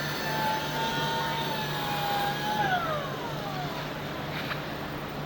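Automatic fabric-cutting machine's motor whining at a steady pitch, then winding down about three seconds in, over a constant low hum.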